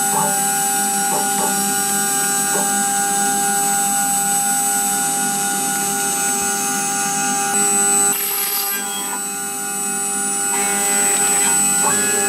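CNC router spindle whining steadily as its end mill cuts into a plastic ND filter card. A few short clicks come in the first seconds, and a brief hiss about eight seconds in.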